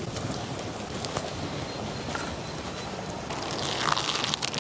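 Bread omelettes sizzling on a hot iron tawa with faint crackles, while a perforated steel spatula spreads mint-coriander chutney over them. The spatula scrapes more loudly near the end.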